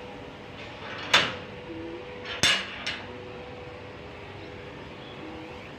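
Three sharp metallic clanks: a loud one about a second in, then two more close together about a second later, the first with a short ringing tail.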